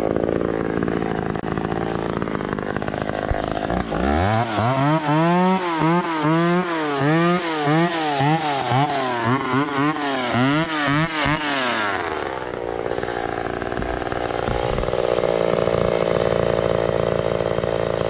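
McCulloch Pro Mac 570 two-stroke chainsaw idling, then blipped up and down in quick throttle revs, about one and a half a second, for some eight seconds before settling back to idle.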